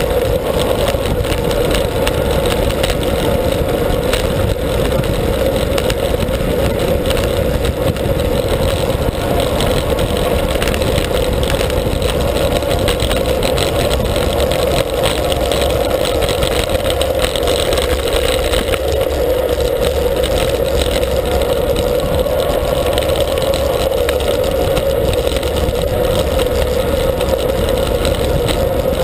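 Steady wind noise buffeting a handlebar-mounted action camera's microphone on a road bicycle descending at speed, a constant loud rush over a low rumble.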